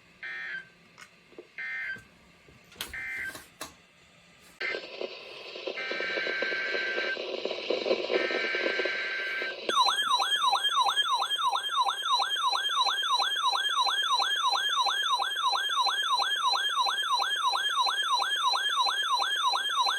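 Emergency alert broadcast tones: three short screeching data bursts about a second apart, then a few seconds of a rougher buzzing tone, then a loud warbling alert tone that sweeps up and down about two and a half times a second. The tones mark the start of a new weather warning.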